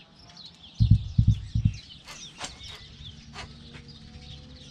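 Several wild birds chirping with quick falling notes and a few sharp calls, plus a burst of about four low thumps about a second in.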